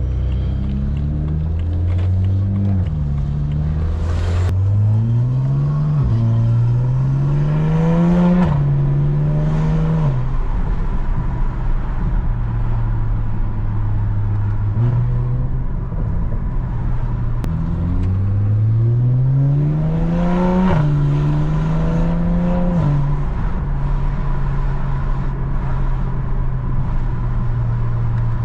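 BMW E92 335is's N54 twin-turbo inline-six, running a muffler delete and catless pipes, being driven: the exhaust note climbs in pitch under acceleration and drops sharply at each upshift, several times, with steady cruising stretches in between.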